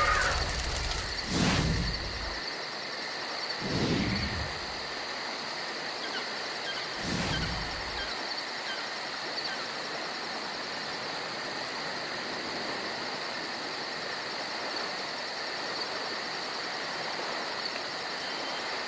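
Insects trilling steadily on two high pitches against a faint outdoor hiss, with three brief low rumbles of wind on the microphone in the first eight seconds or so.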